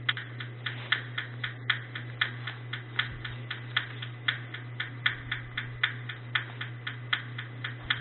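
A steady rhythm of sharp ticking clicks, about four a second, over a low hum: the ticking opening of a song played back through headphones, just before the rest of the music comes in.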